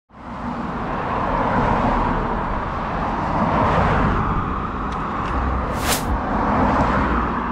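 Steady road and engine noise of a moving car, with a brief hiss about six seconds in.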